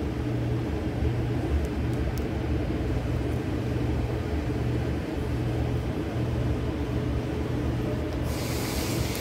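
A steady low machine hum, with a hiss joining in near the end.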